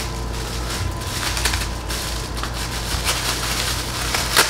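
Clear plastic packaging bag crinkling as a boxed speaker is handled, with scattered crackles and one sharp click near the end, over a steady low electrical hum.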